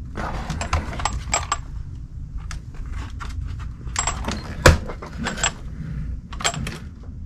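Clicking, rattling and knocking of a crashed Arrma Infraction V2 RC car's plastic and metal chassis parts as it is handled and turned over on a workbench, in several short clusters, with one louder knock a little under five seconds in.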